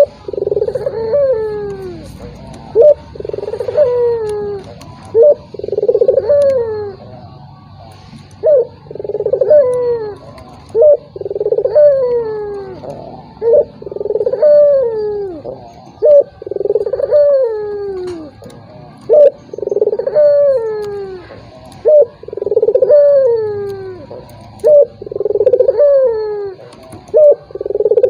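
Puter dove cooing over and over: a short sharp note, then a longer falling coo, repeating every two to three seconds. It is a lure call meant to set off a rival dove that is slow to coo.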